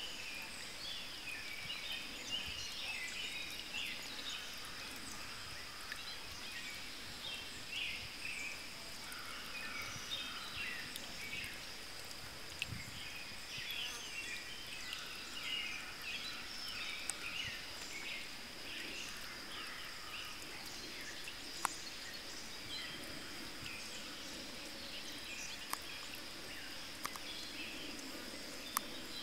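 Outdoor summer ambience: birds chirping over and over throughout, over a steady, high-pitched insect drone. A few sharp clicks stand out.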